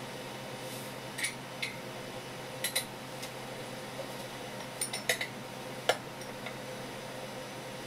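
Light clinks and taps of porcelain tableware being handled, in scattered short strikes with a few close pairs, over a steady low hum.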